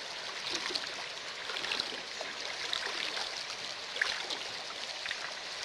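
Shallow, rocky river flowing: a steady rush of water, with a few small splashes.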